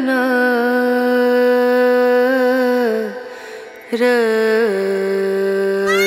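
Background music: a single voice sings a long held note, breaks off about three seconds in, then takes up another held note that steps down lower.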